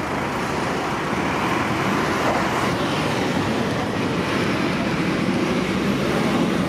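Steady road-traffic noise of buses and cars at a busy city tram and bus junction, as an SL95 tram rolls in toward the stop.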